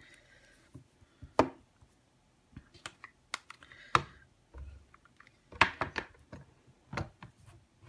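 Scattered sharp clicks and taps from hand stamping tools: a small magnet set down onto the Stamparatus platform, then a red ink pad dabbed against a clear photopolymer stamp, with a cluster of quick taps a little after halfway.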